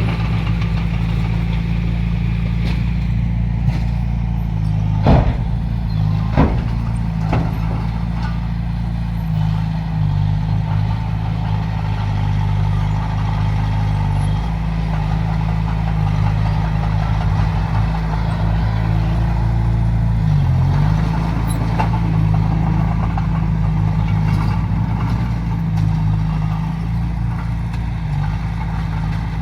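Heavy earthmoving machine's diesel engine running steadily under work, with a few sharp knocks about five to seven seconds in and a brief dip in the engine note about twenty seconds in.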